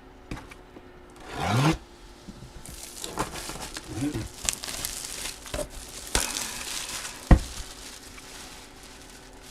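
Plastic and paper packaging crinkling and tearing as a sealed box of memorabilia cards is unwrapped, with one sharp snap about seven seconds in.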